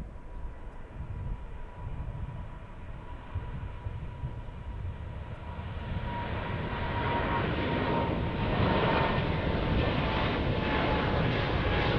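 Jet engines of an American Airlines Boeing 787 climbing out after takeoff. A low rumble builds to loud jet noise from about halfway through, with a rough, crackling edge. Over it runs a thin steady whine that slowly drops in pitch as the plane passes.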